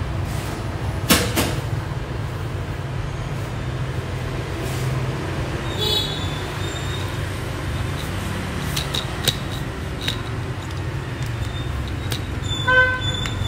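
Steady low rumble of busy kitchen and street background, broken by a few sharp knocks and clinks, with a brief high pitched squeak or toot near the end.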